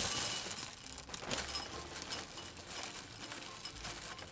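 Dry Oreo O's cereal poured from its plastic bag into a ceramic bowl: a dense, rattling clatter of small pieces hitting the bowl and each other, loudest at first and easing off as the pour goes on.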